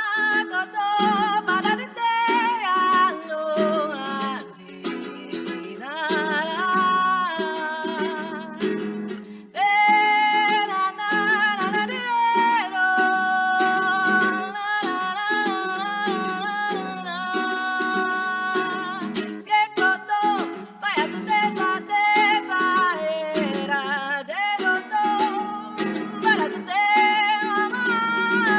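A song: a voice sings a melody over plucked acoustic string accompaniment, with a short break about nine seconds in.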